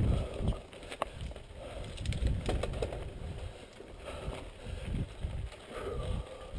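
Mountain bike rolling fast down a dirt singletrack: tyres crunching over loose dirt and stones, with the bike rattling and scattered sharp clicks and knocks over an uneven low rumble.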